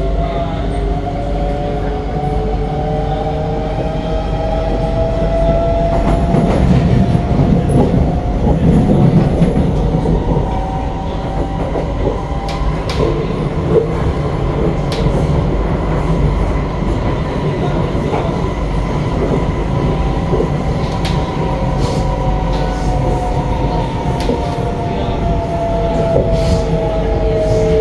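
SMRT C151B metro train heard from inside the car. The traction motors whine in several tones together, rising in pitch as the train picks up speed, holding, then falling in pitch near the end as it brakes. Under it runs a steady rumble of wheels on rail with occasional clicks.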